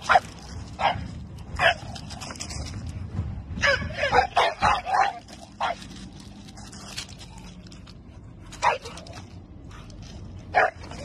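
A bulldog barking at a garbage truck beyond the fence: short single barks, a quick run of several barks about four seconds in, then a few more spaced out.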